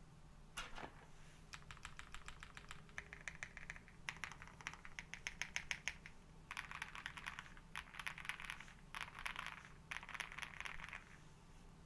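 Meletrix Zoom65 mechanical keyboard with KTT Strawberry linear switches, PBT keycaps and a polycarbonate plate being typed on: fast runs of keystrokes in bursts of about a second, separated by short pauses.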